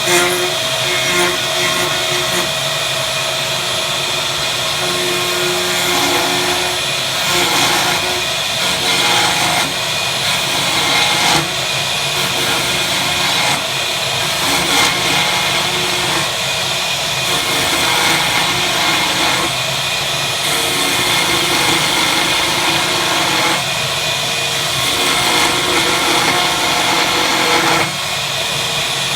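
A power tool running continuously, with its note and load shifting every second or two as it works.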